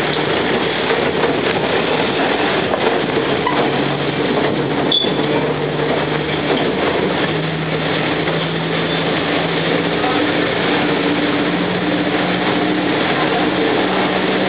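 Tourist road train running through the streets, heard from its open carriage: a steady drone of the tractor unit's engine under constant ride noise, the engine note rising in steps as it picks up speed, with a single knock about five seconds in.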